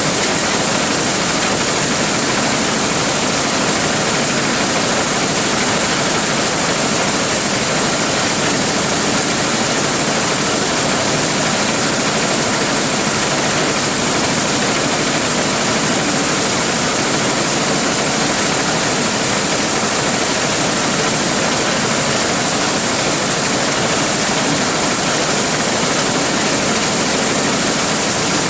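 Large corn thresher running steadily: a loud, even rushing noise with a high hiss on top.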